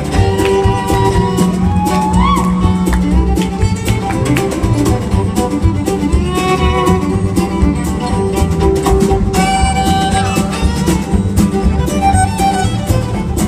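Live acoustic country-folk band playing an instrumental passage, with a fiddle leading in sliding notes over guitar accompaniment.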